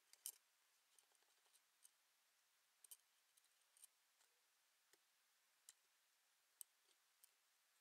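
Faint, light metallic clicks at irregular intervals, about ten in all, from small watchmaker's tools handling the parts of a pocket watch movement during work on the watch. The loudest comes just after the start.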